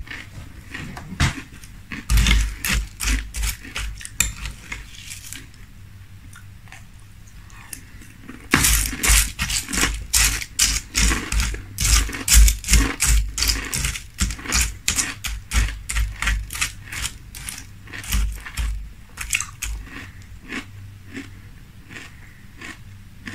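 Close-miked chewing of frosted corn flakes in milk: rapid crunching, about three chews a second, in a short run early on and then a long run from about a third of the way in, with a metal spoon clinking against a glass bowl.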